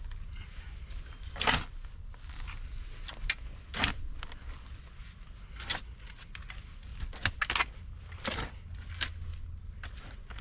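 A short-handled shovel digging into soil: about ten irregular chops and scrapes of the blade into the dirt, over a steady low rumble.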